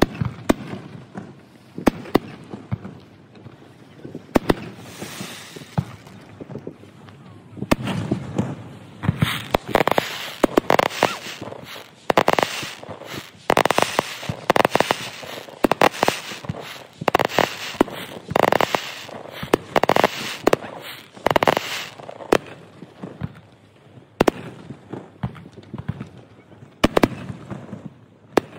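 Fireworks display: sharp bangs of bursting shells, spaced out at first, coming thick and fast through the middle, then thinning out again near the end.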